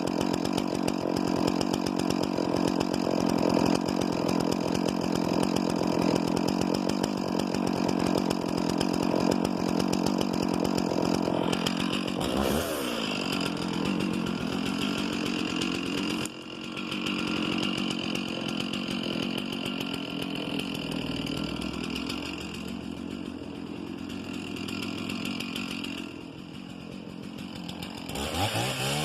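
Two-stroke chainsaw cutting into a cedar tree. It runs steadily under load for the first twelve seconds, then its engine pitch shifts and settles lower. Near the end it revs up sharply.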